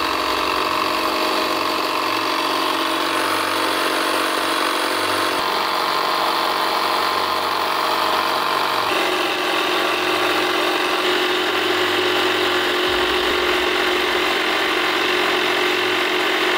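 Audew portable 12-volt tire inflator running steadily under load, pumping a truck tire up from about 20 psi toward its 45 psi set point.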